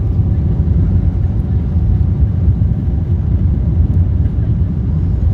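Airbus A340 airliner noise: a loud, steady low rumble of engines and airflow.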